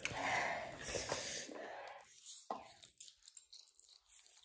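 Faint eating sounds from spicy instant noodles: breathy blowing and slurping over the first second or so, then mostly quiet with a few soft clicks.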